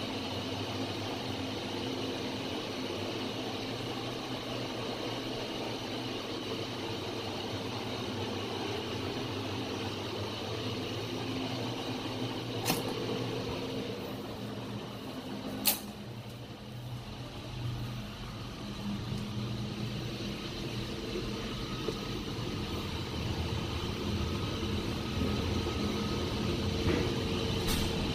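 Steady drone of a cruise ship's engine-room machinery, with several level tones in it. About halfway, a door latch clicks and then a door shuts with a sharp knock. The drone drops for a few seconds afterwards and then builds up again.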